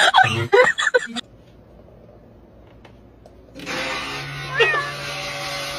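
Short choppy voice sounds, then after a quiet gap a steady background hiss in which a cat gives one brief meow.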